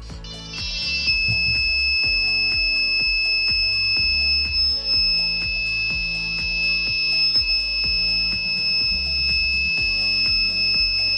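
Piezo buzzer of a homemade rain alarm sounding: a few quick beeps, then a steady, high-pitched electronic tone held without a break. This is the alarm going off as the rain detector senses water.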